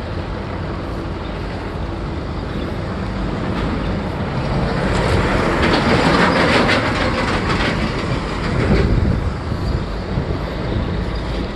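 Roadside traffic noise: a heavy vehicle rumbles and rattles past, swelling to its loudest in the middle and then fading.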